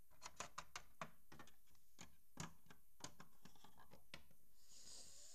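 Light, irregular clicks and taps, about a dozen, as small plastic Littlest Pet Shop figures are handled and knocked against a plastic toy playset, followed by a soft breathy hiss near the end.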